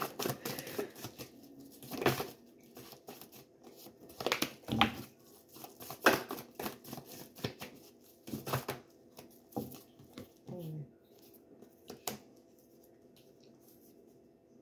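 A tarot card deck being shuffled by hand: irregular rustles and card-on-card slaps, with the loudest bursts about 2, 4.5, 6, 8.5 and 12 seconds in.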